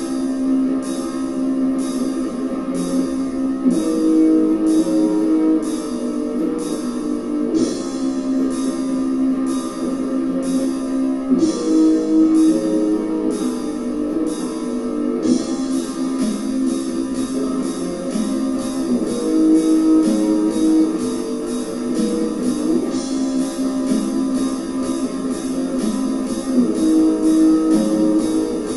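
Viking black metal demo recording: distorted electric guitar chords over drums, with cymbal strikes about twice a second that turn faster about halfway through.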